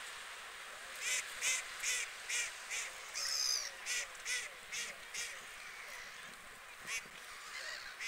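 Waterfowl calling: a run of about nine short calls, two or three a second, starting about a second in and stopping about five seconds in, with one longer wavering call in the middle of the run. One more short call comes near the end.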